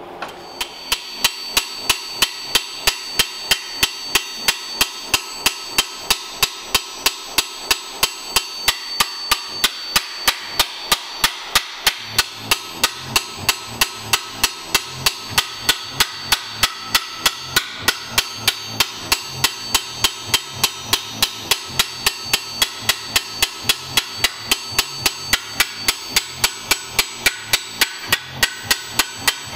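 A hammer striking sheet steel on an anvil in a steady rhythm of about three blows a second, each blow leaving a high metallic ring. The metal is being stretched so the flat panel takes on a compound curve.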